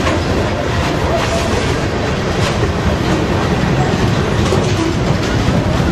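Freight cars (tank cars and covered hoppers) of a passing general merchandise train rolling by on the track: a steady loud rumble, with the wheels clicking over rail joints.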